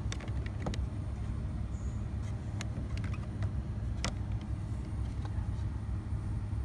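Light clicks and taps of a hand and fingernails against plastic blister-pack lip balm cards hanging on store display pegs, a few scattered taps, over a steady low rumble.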